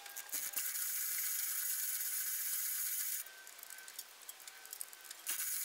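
Chain fall (manual chain hoist) being worked, its chain rattling steadily through the hoist, loud enough to hurt the ears. The rattle stops about three seconds in and starts again near the end.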